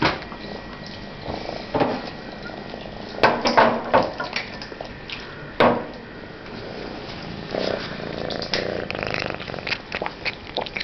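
Domestic cat purring while being held, broken by a few short, louder sudden sounds: one right at the start and others about two, three and a half and five and a half seconds in.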